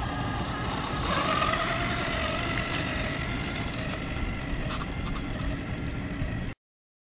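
Electric motor and gearbox whine of a 1/14 Tamiya Grand Hauler RC semi truck driving past, with a steady mechanical noise under it. The whine is strongest about a second in, eases as the truck drives away, and cuts off suddenly near the end.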